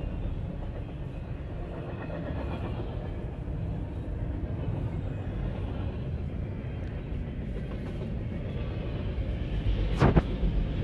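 Double-stack intermodal freight train rolling past at speed: a steady rumble of wheels on rail. Near the end comes one sharp bang, the loudest moment.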